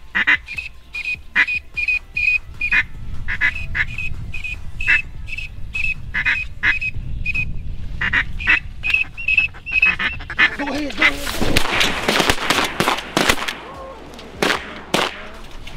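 Mallard-style quacking: a quick run of short, evenly spaced quacks. About ten seconds in it gives way to a louder, denser stretch of sharp sounds.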